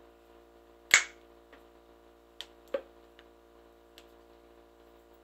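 Sharp plastic snap about a second in, then a few lighter clicks and taps, as the plastic line connectors and caps of a peritoneal dialysis line are opened and connected to a solution bag. A steady low hum runs underneath.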